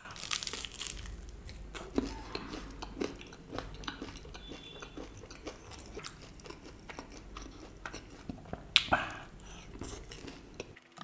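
Close-miked chewing and crunching of a fried cheese spring roll dipped in chutney: many small crackles, with one louder crunchy bite near the end.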